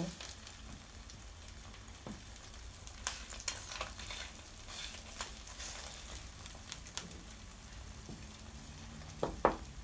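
Eggs sizzling as they fry in a nonstick pan, with scattered crackles and pops. A wooden spatula scrapes and taps the pan as it breaks up the yolks, with a couple of louder knocks near the end.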